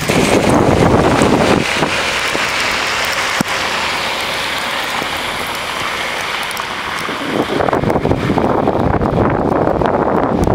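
Wind buffeting the camera microphone in a snowstorm, a rough rumbling noise that eases after a couple of seconds into a smoother, higher hiss and returns strongly about seven and a half seconds in.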